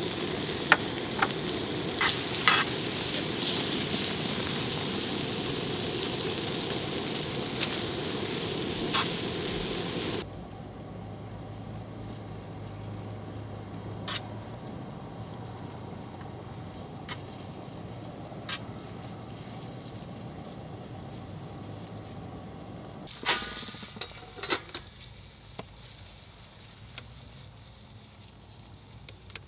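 Rice and kimchi sizzling on a hot round griddle, with a metal spatula and spoon clicking and scraping against the pan. About ten seconds in the sound drops suddenly to a quieter frying, and a few sharp utensil knocks come near the end.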